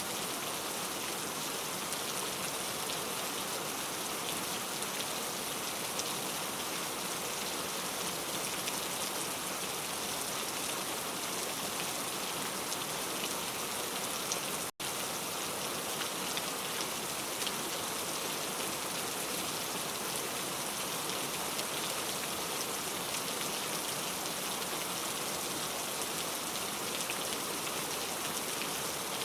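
Heavy rain falling steadily, a dense even hiss of drops on surfaces. About halfway through the sound cuts out for a split second and resumes.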